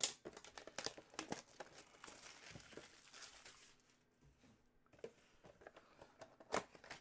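Plastic shrink-wrap crinkling and tearing as it is stripped from a small cardboard trading-card box, then a short lull and a few light clicks and taps as the box is turned and its lid flap is opened.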